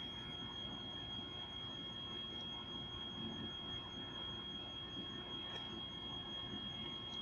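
Faint background hiss with a steady high-pitched whine held on one pitch.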